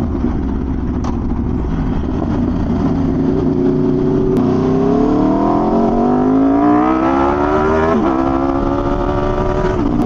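1100cc motorcycle engine through an SC Project exhaust, cruising steadily, then accelerating with the revs climbing, a quick drop at a gear change about eight seconds in, and climbing again.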